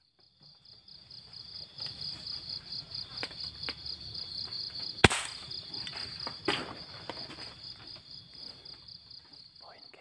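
A single sharp air-rifle shot about five seconds in, the loudest sound, with a softer knock about a second and a half later, over a steady, rapidly pulsing high insect chirr. The shot brings down the small bird that is fetched right after.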